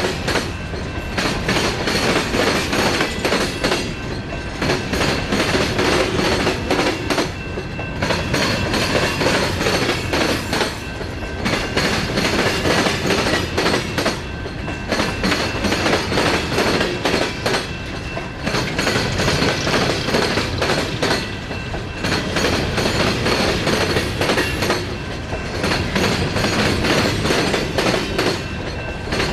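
Empty steel coal hopper cars of a long freight train rolling past, their wheels clattering over the rail joints. The clatter swells and eases in a steady cycle of about three and a half seconds, with a faint high squeal running through it.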